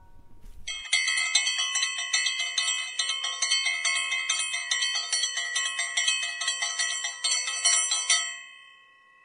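A bell rung in a fast, continuous trill for about seven seconds. The same bright ringing tones are struck over and over, then it fades out near the end.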